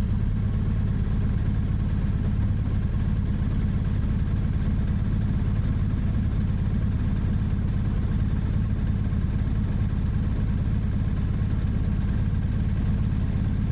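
Motorcycle engine idling steadily at an even pitch.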